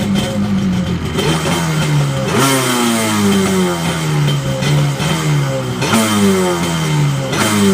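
1994 Kawasaki 750 SS Xi jet ski's two-stroke twin engine running after a restoration, being blipped repeatedly: each throttle blip sends the revs up sharply, and they fall back over a second or so, about every one and a half to two seconds.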